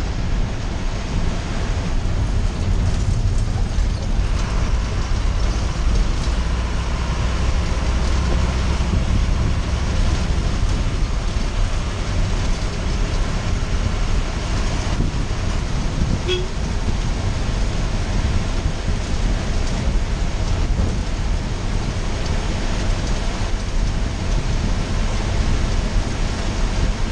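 Bus engine running and road noise heard from the front of the cab, steady while the bus drives along.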